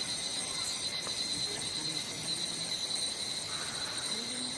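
Insects shrilling in a steady, high-pitched drone.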